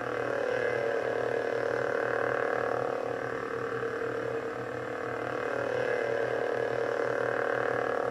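Ultrasabers Emerald lightsaber soundboard playing its idle hum through the hilt's speaker: a steady, buzzing hum that swells and dips slightly.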